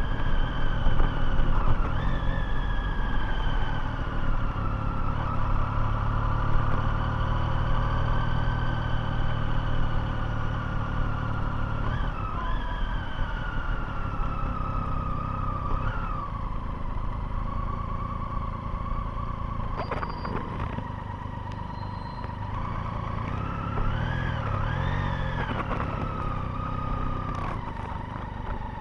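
Motorcycle engine running while riding. Its pitch falls gradually over the first half, with a few brief rises, then settles lower and climbs briefly again near the end.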